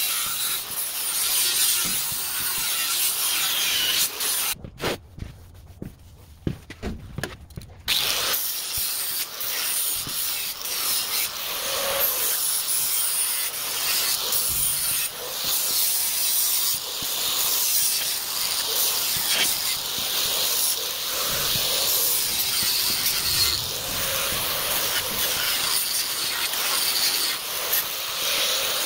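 Electric angle grinder with a disc grinding across a flat A36 steel plate, a steady hissing, scraping whine as it takes the mill scale off the bare metal. About five seconds in, the grinding drops away for about three seconds, leaving a few clicks, then resumes.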